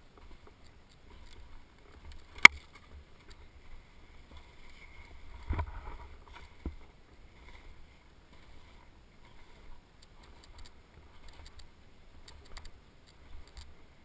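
Snowboard sliding and scraping across snow on a traverse. A sharp loud knock comes about two and a half seconds in, the loudest sound here, then a heavier thump a few seconds later and a smaller knock just after it.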